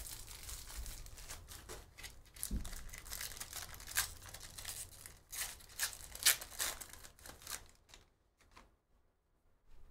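Wrapper of a Panini Donruss basketball card pack crinkling and tearing as it is ripped open, in quick irregular rustles and crackles that die away about eight seconds in.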